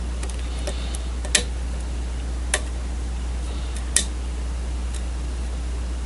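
Lock picking: three sharp small metallic clicks, about a second and a quarter apart, with a few fainter ticks, as the pick works the challenge lock's pins under tension. A steady low hum runs underneath.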